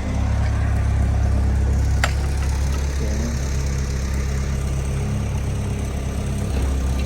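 Excavator engine running steadily while digging, with a single sharp knock about two seconds in.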